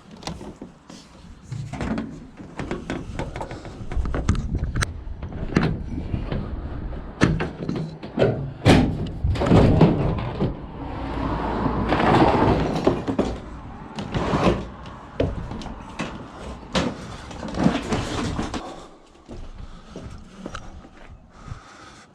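A run of knocks, bangs and clattering over a low rumble, with door-like slams among them; the rumble drops away near the end.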